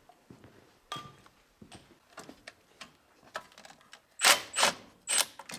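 Scattered light clicks and knocks of hand tools and metal parts being handled during disassembly, with a few louder clattering noises about four seconds in and again near the end.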